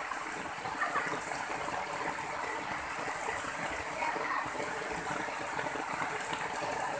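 Muddy floodwater rushing across flooded ground in a steady, even rush of water.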